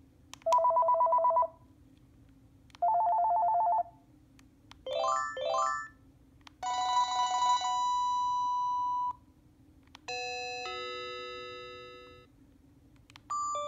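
Panasonic KX-TGEA40 cordless phone handset playing a series of different short electronic ringtones one after another: a fast two-note trill heard twice, two quick rising arpeggios, a held chime, a chord that fades away, then a new melody starting near the end.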